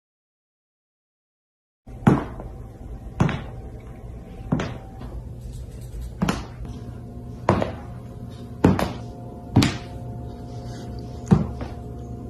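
Silence for about two seconds, then a cat's paws in a slipper thudding on a hardwood floor, about once a second, as the cat walks along. Soft background music plays under the thuds.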